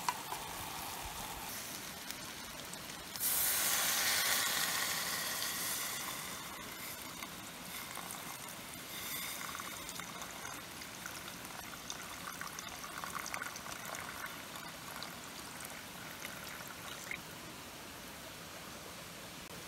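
Liquid poured into a cooking pot, starting suddenly about three seconds in and fading over a few seconds, with smaller pours or splashes later.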